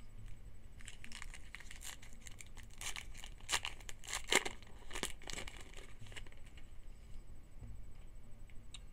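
A trading-card pack's wrapper being torn open and crinkled, a dense run of rips and crackles lasting about five seconds.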